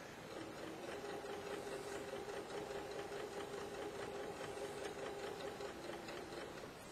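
Home sewing machine running at a steady speed while edge-stitching down a fabric strip: an even motor hum with rapid needle ticking, stopping shortly before the end.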